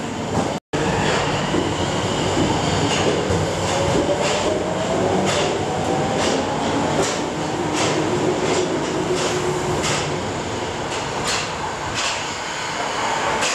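A Tokyo Metro Marunouchi Line subway train moving along a station platform. Its motor whine rises in pitch as it gathers speed, over a steady rumble and repeated wheel clicks on the rail joints.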